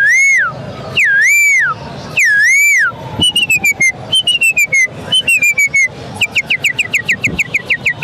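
A man whistling bird-like phrases close into a microphone. First come three long wavering whistles, then quick runs of falling notes, then a fast string of short downward-sweeping notes.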